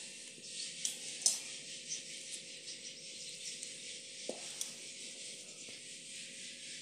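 Steel utensils handled on a concrete floor: a few light clicks and a soft knock about four seconds in, over a faint steady high hiss.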